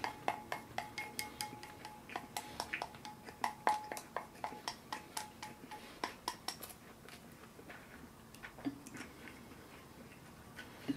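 Wooden chopsticks clicking against a ceramic rice bowl as rice is shoveled in, quick taps about four a second. The clicking stops about seven seconds in, leaving only a few scattered taps.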